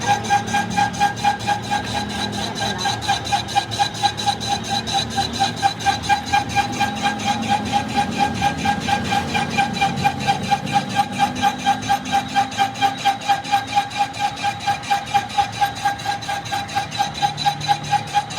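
Workshop machine running: a steady ringing tone pulsing evenly about five times a second.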